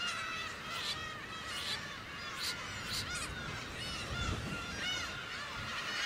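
Chinese egret chicks begging at the nest, a fast run of short, high, arching calls, repeated many times a second, as a parent arrives with food. A few sharp clicks come in among the calls.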